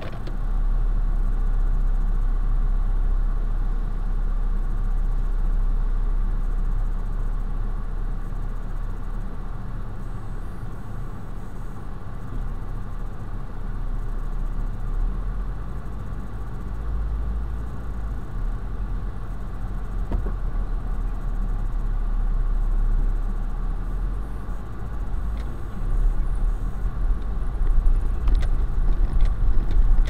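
Car cabin rumble picked up by a dashboard camera as the car waits and then drives slowly forward, a steady low drone of engine and road. Small rattles and knocks come in near the end.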